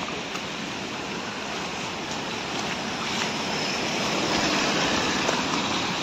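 Rushing water of a waterfall: a steady, even hiss that grows a little louder about halfway through.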